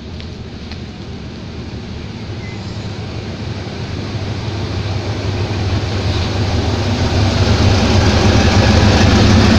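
GE diesel-electric locomotive hauling an express passenger train into the platform. Its engine runs with a steady low hum that grows louder throughout as the locomotive draws near and passes close by.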